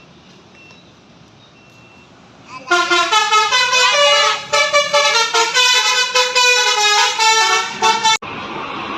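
Tour bus telolet musical horn, a set of multi-trumpet electric horns, playing a quick melody of changing notes with several sounding together. It starts about three seconds in, after a quieter stretch, and cuts off suddenly near the end.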